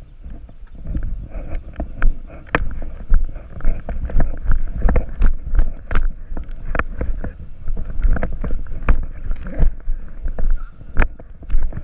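Wind buffeting a helmet-mounted action camera's microphone as a low rumble, broken by frequent irregular knocks and clicks from walking and gear.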